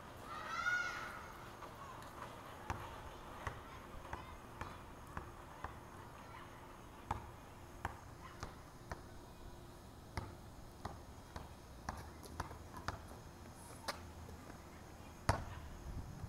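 Footsteps clicking on pavement at walking pace, about one or two light clicks a second, with a short high sliding call about half a second in.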